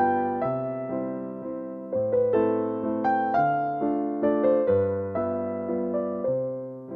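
Background music: a gentle electric piano melody with chords, notes struck and fading about twice a second.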